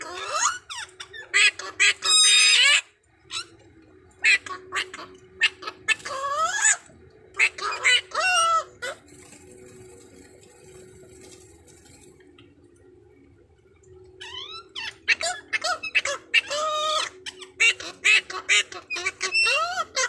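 Pet parrots, a blue-naped parrot and a racket-tailed parrot, calling back and forth with harsh squawks and rising and falling whistled notes, in bouts broken by a few seconds' lull near the middle.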